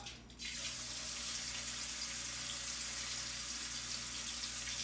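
Hybrid striped bass fillets sizzling in hot oil in a frying pan: a steady hiss that starts abruptly about half a second in, as the fish goes into the oil.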